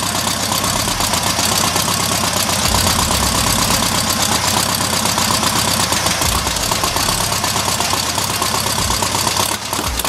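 1972 VW Super Beetle's air-cooled flat-four engine idling steadily with its engine lid open. It has sat for a long time and is now running on its own, though its carburettor still needs cleaning.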